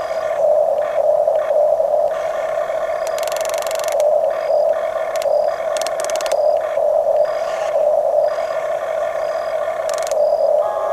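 Electric drive motors and plastic gearboxes of Huina radio-controlled construction models whining steadily as they work, with bursts of higher-pitched gear whine and grinding coming and going as functions are operated.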